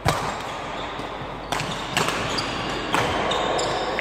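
Badminton rally: sharp cracks of rackets striking the shuttlecock, the loudest right at the start and three more about 1.5, 2 and 3 seconds in, ringing on in the echoing sports hall, with brief high squeaks of shoes on the wooden floor.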